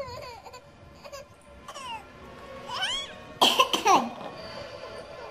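A baby gives a short high squeal, then coughs about three times in quick succession.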